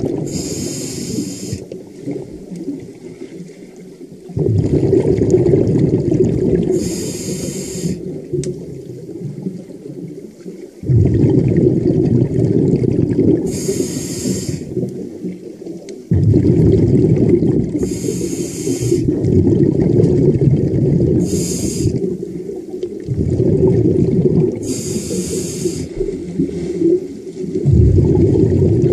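A diver breathing underwater through a scuba regulator: a short hiss with each breath in, about every six or seven seconds, and loud rushing and bubbling of exhaled air in long stretches between.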